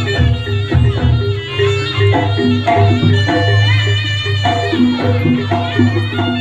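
Jaranan ensemble music played live: a steady drum pulse under a line of held, stepped melodic notes.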